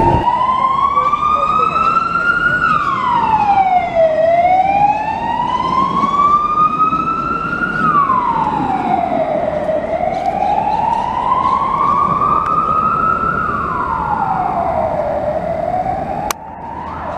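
Emergency vehicle siren in a slow wail, rising in pitch for about two and a half seconds and falling back, three times over, above a steady hum of street traffic. It cuts off abruptly near the end.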